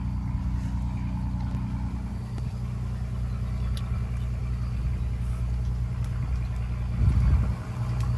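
Steady low motor hum, with a brief louder low rumble about seven seconds in.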